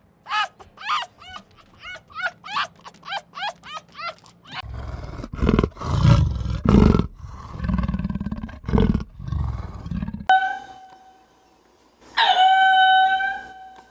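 Wild animal calls: a quick run of short yelping calls rising and falling in pitch, then several loud low roars, then long, steady, high calls near the end.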